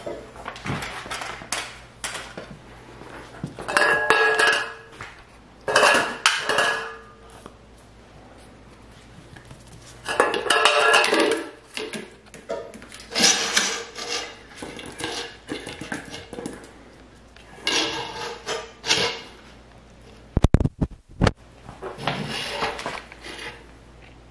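Dog bowls clattering and ringing in bursts as German Shepherd puppies knock them about in their wooden holder tray, with a quick cluster of sharp knocks about twenty seconds in.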